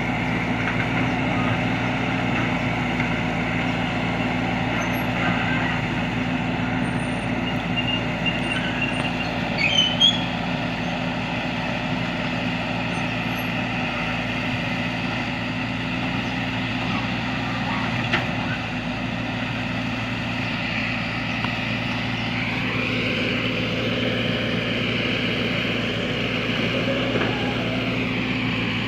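Excavator's diesel engine running steadily, its tone shifting about 22 seconds in as the load changes.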